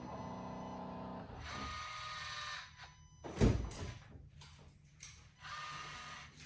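BMW X3 M40i with its ignition on, its electric pumps and actuators running in short spells: a steady electric hum, then whirring, with one sharp click about three and a half seconds in. These are the car's ordinary start-up sounds.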